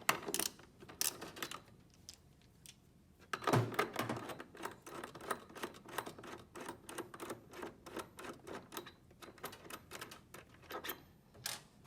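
Irregular sharp clicks and clinks of hand tools on metal as a jam nut and wire eyelets are worked off the back of the plasma cutter's torch receptacle, with one louder knock about three and a half seconds in.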